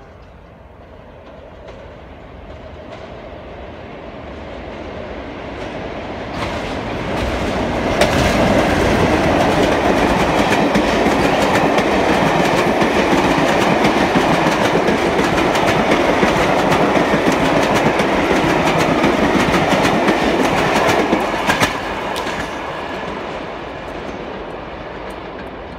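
West Coast Railway charter train passing through, its locomotive taken for a Class 47 diesel. The noise builds for several seconds as the train approaches. The coaches then go by loud, their wheels clattering over the rail joints, until the sound drops away suddenly about 22 seconds in and fades as the train recedes.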